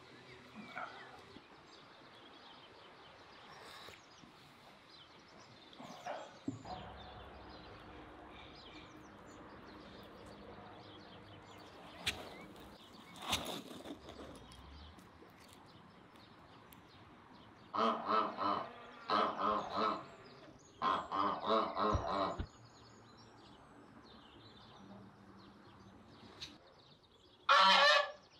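Farmyard poultry calling: in the second half, three loud bursts of rapid, repeated calls, and one more short burst near the end, over faint yard noise with a few light knocks.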